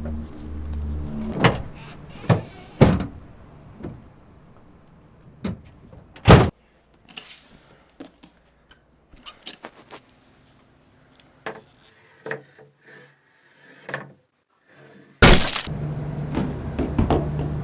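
A series of sharp knocks and thuds with quiet gaps between them, the loudest about six seconds in. About fifteen seconds in, a loud steady low rumble starts abruptly.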